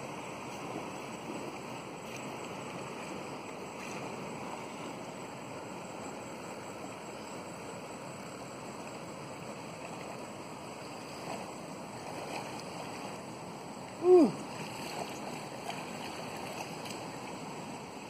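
Steady rushing of water from distant river rapids and falls. About four seconds before the end, a brief loud cry drops sharply in pitch.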